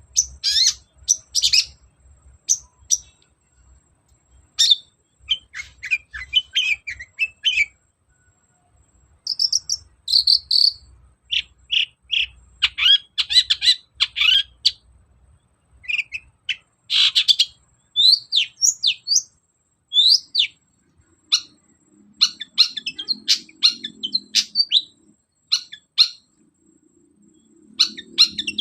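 Long-tailed shrike singing in rapid bursts of sharp chirps, trills and down-slurred whistles, with short pauses between phrases.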